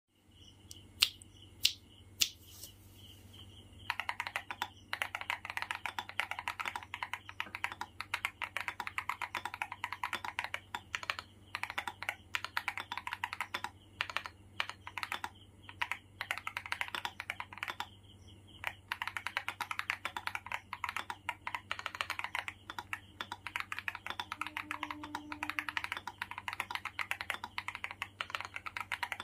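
Akko 5075S mechanical keyboard with Akko Lavender Purple tactile switches and GMK Bushido keycaps, typed on fast and steadily with a crunchy sound. A few sharp, loud single clicks come first, and continuous rapid typing starts about four seconds in, with a few short pauses.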